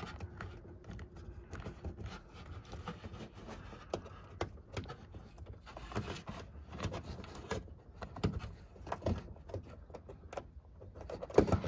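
Rubber wiring grommet being pressed back into its hole in a car's sheet-metal body by thumb: soft rubbing and handling noise with scattered small clicks and taps as it seats.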